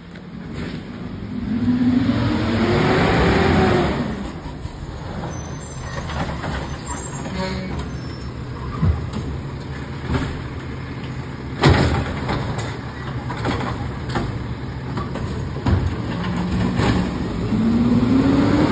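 Automated side-loader recycling truck running, its engine revving up twice, near the start and near the end, as the hydraulic arm works a recycling cart, with a few sharp knocks in between, the loudest about twelve seconds in.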